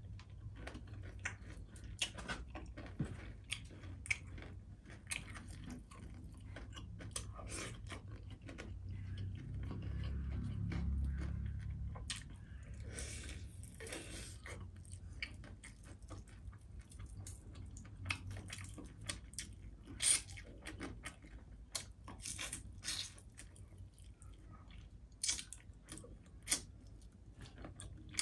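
Close-miked chewing of crispy fried fish eaten by hand, with irregular sharp crunches. A low rumble swells for a few seconds near the middle.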